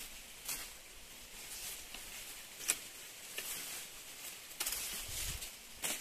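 Tall Napier grass leaves rustling as stalks are gripped and cut by hand with a short blade, with sharp snaps of the cut stalks about three seconds in and again near the end.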